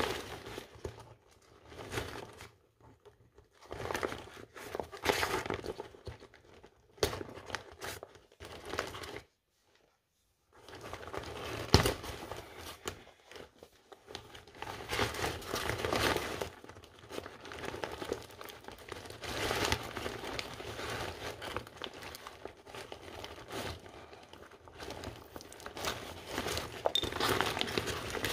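Kite canopy fabric and bladder being handled and pushed about: irregular crinkling and rustling in stretches, broken by a short silent gap, with one sharp click about twelve seconds in.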